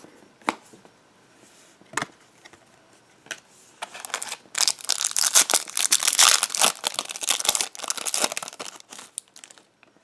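Foil trading-card pack wrapper being torn open and crinkled by hand, a dense run of crackling that starts about four seconds in and lasts some five seconds. Before it come a couple of light taps.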